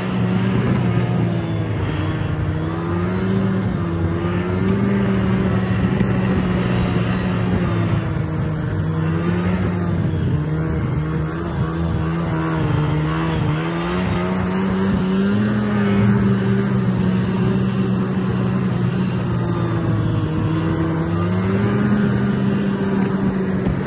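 Snowmobile engine running under way, heard from the rider's seat, its pitch rising and falling with the throttle over track and snow noise.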